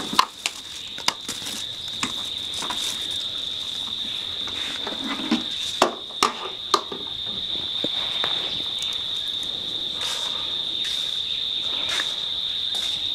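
Steady, high-pitched chirring of insects, unbroken throughout, with scattered sharp clicks and knocks of objects being handled over it.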